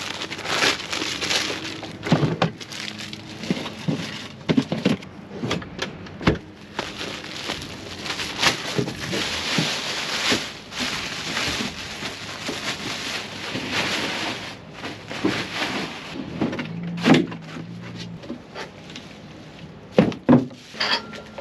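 Thin plastic drop cloth crinkling and rustling as it is unfolded and spread out, with scattered knocks and clunks as paint cans and a bucket are set down on it.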